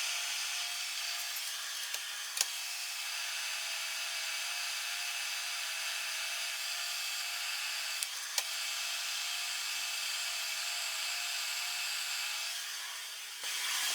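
Metal lathe cutting steel: a steady scraping hiss of the cut over a faint steady tone, with two sharp clicks and the sound dropping away near the end.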